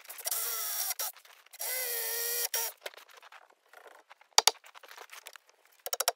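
Power drill running in two bursts of about a second each, its pitch wavering under load, followed by scattered sharp clicks and knocks.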